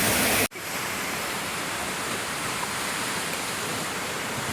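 Steady rush of falling water. About half a second in it cuts off abruptly and comes back at once, quieter and steady.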